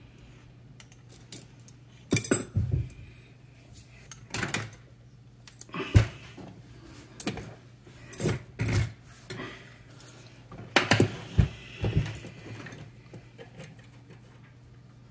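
A dozen or so irregular metal clinks and knocks as a Dunlop brake caliper assembly and its steel brake hard lines are handled and fitted together by hand.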